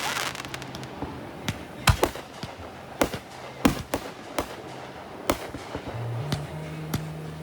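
Fireworks going off: a string of sharp bangs, roughly one to two a second at irregular spacing, with a crackling hiss in the first moment.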